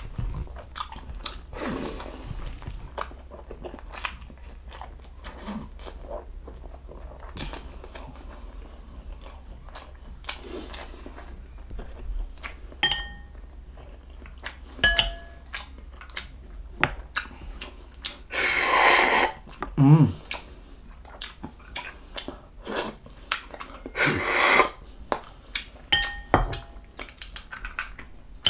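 Close-miked chewing and biting of beef bulalo meat and marrow, with wet mouth clicks throughout and a few light clinks of a utensil. Twice in the second half comes a longer, louder slurp.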